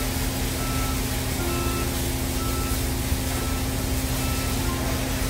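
Steady heavy-machinery drone with a constant low hum, as a crane lifts a VRM grinding roller tyre. A faint warning beeper chirps in short beeps less than a second apart.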